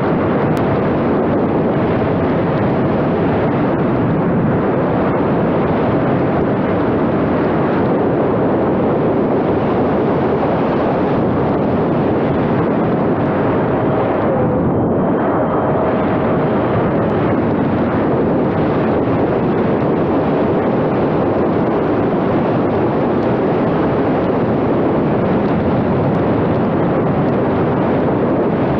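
Steady, loud wind rush over the microphone of a camera riding on a flying model airplane, with a faint steady tone coming and going underneath. The rush thins briefly about halfway through.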